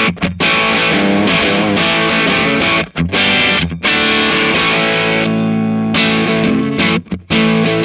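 Fender Stratocaster played through a Marshall JCM2000 DSL100 valve amp head in crunch mode, close-miked at the speaker: loud, crunchy distorted chords and riffs, with a few brief stops between phrases. This is the amp's play test after its main board was replaced.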